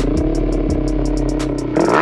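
Motorcycle engine running at a steady pitch, then revving up sharply near the end as the throttle opens, on a test run with its Juken ECU freshly live-tuned. A steady beat of background music runs over it.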